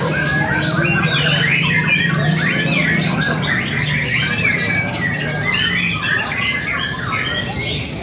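Many caged songbirds singing at once: a dense chorus of overlapping whistles, chirps and trills.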